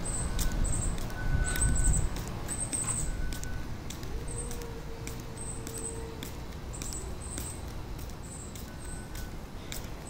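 Outdoor background: a low rumble dies away about two seconds in, leaving a steady low hum with repeated short, high chirps.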